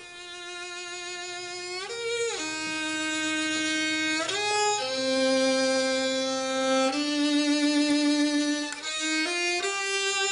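Background score music: a solo violin playing a slow melody of long held notes.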